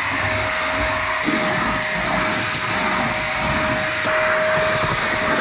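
Small corded vacuum cleaner running steadily with a constant whine, its wand nozzle being worked over a sanded plywood van floor to suck up dust.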